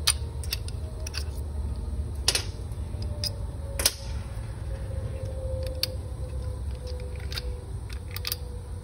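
Scattered sharp metallic clicks and taps of small steel parts being worked as the AR-15 trigger pins and trigger group come out of the lower receiver, about half a dozen in all, over a steady low hum.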